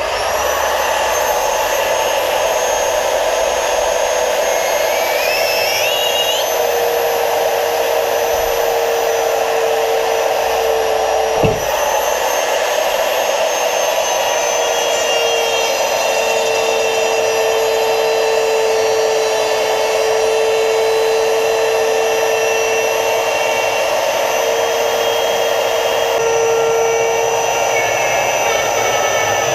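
A small high-speed electric power tool starts up and runs steadily while trimming material to fit the rod buckle. Its motor whine holds a near-constant pitch that wavers slightly, with one sudden brief dip about eleven seconds in.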